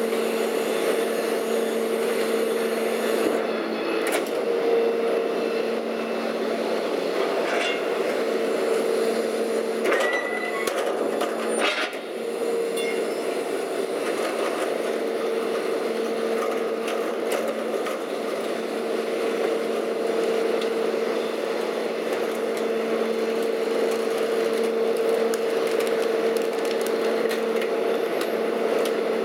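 Leach 2R-II rear-loader garbage truck running with a steady drone from its engine and hydraulics while a steel half-yard container of demolition waste is tipped into the hopper. A few knocks and clatters of the container and debris come about four, seven and ten to twelve seconds in.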